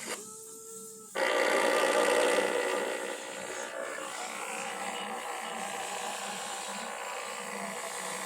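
A steady two-note tone lasts about a second, then radio static cuts in suddenly. The static is a loud hiss for a second or two, then settles into a steady hiss with a faint buzzing hum.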